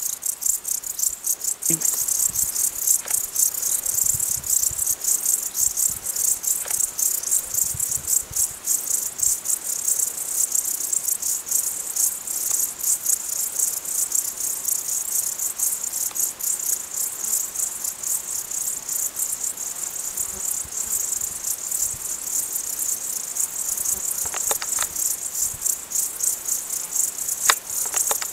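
Crickets chirping: a continuous, fast high-pitched pulsing with no pauses.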